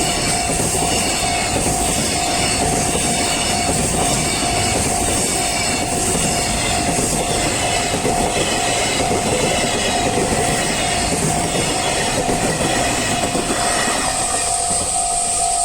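A train passing over a level crossing, its wheels clattering on the rails, while the crossing's warning bell rings steadily. The train noise falls away about fourteen seconds in and the bell keeps ringing.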